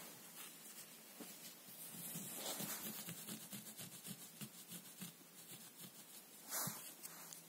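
Fingers scratching and rubbing on a low-pile carpet in a quick run of faint scratches, with one louder scrape near the end.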